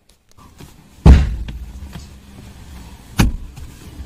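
Seat mechanism of a Toyota Fortuner's rear seat being worked by hand: a heavy thump about a second in, then a sharp click about two seconds later as the seatback is unlatched and tilted.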